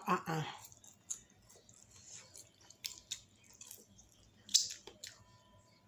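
A person chewing food close to the microphone: scattered short wet clicks and smacks of the mouth. A spoken "wow" trails off at the very start.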